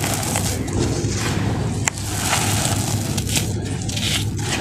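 Dry, crumbly red sand trickling and crunching through fingers as handfuls are poured and rubbed, with a single sharp click about two seconds in.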